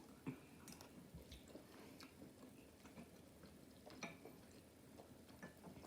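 Faint chewing and small mouth clicks while eating, a few short clicks standing out over near silence.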